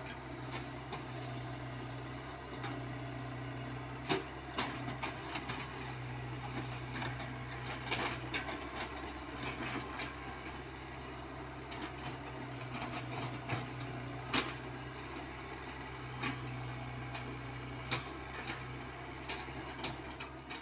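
Komatsu PC75UU mini excavator's diesel engine running steadily under load, with irregular clicks and clatter of gravel as the bucket spreads and levels crushed stone.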